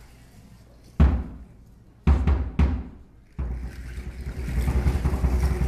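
Large upright huehuetl drum struck with deep beats: one single beat about a second in, a quick group of beats around two seconds, then a steady run of beating from about three and a half seconds.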